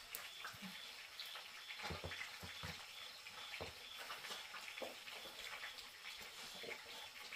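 Faint scattered clinks and light knocks of dishes and utensils being handled, over a low steady hiss.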